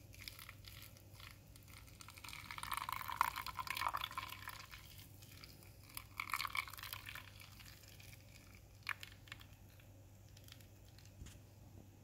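Freshly boiled water poured slowly onto coffee grounds in a paper filter: a faint trickle and splatter, louder about three seconds in and again around six seconds in.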